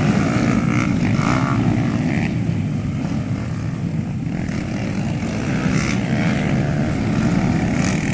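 Several cubcross racing motorcycles' small single-cylinder engines droning together steadily as they ride round the dirt track.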